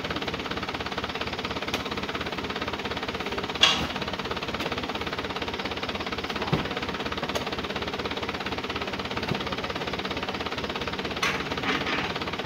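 Light truck's diesel engine idling steadily with a fast, even beat. A few thuds, the loudest about a third of the way in, come from oil palm fruit bunches landing in the truck's metal bed.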